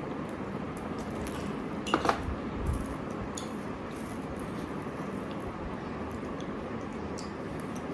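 Eating at a table: cutlery clicking against a plate, with one sharper clink that rings briefly about two seconds in. A steady background hiss runs under it.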